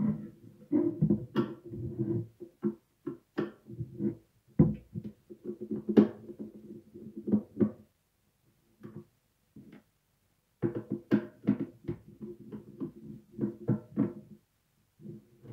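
Background music of plucked guitar notes, dropping almost silent for about three seconds midway before the notes resume.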